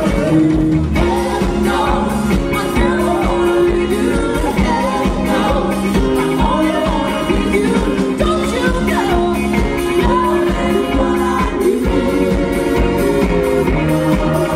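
Live pop band playing through a concert PA: several vocalists singing over a steady drum beat, electric guitar and keyboards.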